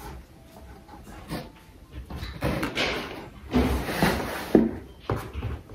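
Clothes and packaging being handled and rummaged through: irregular rustling with a few sharp knocks, the sharpest about four and a half seconds in.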